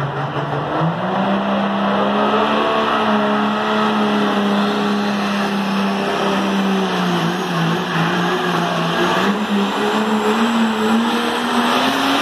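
Diesel pickup pulling truck's engine under full load as it drags a weight-transfer sled down a dirt pulling track. Its note steps up about a second in, holds, sags slightly about two-thirds of the way through, then climbs again near the end.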